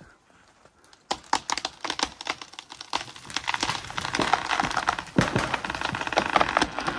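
A felled old-growth tree coming down through the canopy: a rapid run of cracking and snapping branches that starts about a second in and grows louder and denser.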